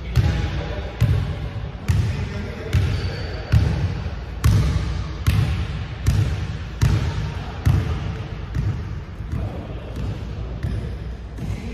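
Basketball dribbled on a hardwood gym floor: a steady bounce about once every second, fading out in the last few seconds.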